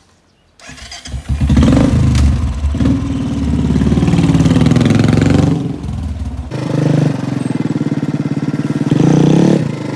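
A motorcycle engine starts about half a second in and runs loudly, its revs rising and falling a few times, dipping about halfway through and again near the end.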